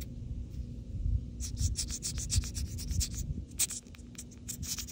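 Irregular scratchy rubbing and handling sounds as a hand moves a small pink toy duck, with a few low bumps.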